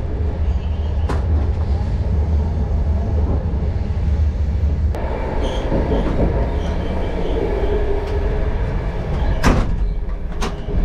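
Interior of a moving passenger train's sleeping car: a steady, heavy rumble of the carriage running on the rails. Two sharp knocks cut through it, about a second in and again near the end, the second the louder.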